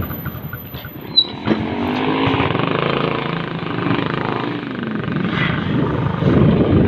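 A vehicle's engine running amid street traffic noise, its pitch rising and falling. There is a short sharp click about a second in.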